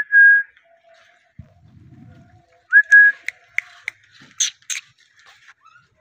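Rose-ringed parakeet whistling: two short notes that slide up and then hold, one at the start and one about three seconds in, followed by a quick run of sharp, high chirps.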